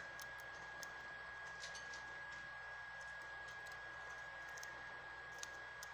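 Quiet room with faint, scattered light clicks over a steady high-pitched whine.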